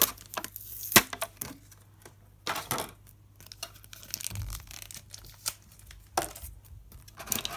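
Small plastic toy pieces and packaging being handled: rustling and crinkling with several sharp clicks scattered through.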